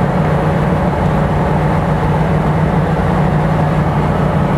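Off-road vehicle's engine droning steadily under load, heard from inside the cab while driving through deep mud and water.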